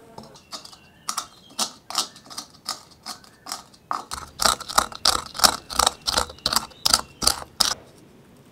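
Wooden pestle pounding in a small mortar, a steady run of sharp knocks about two to three a second that grow louder and a little faster about halfway through, then stop shortly before the end.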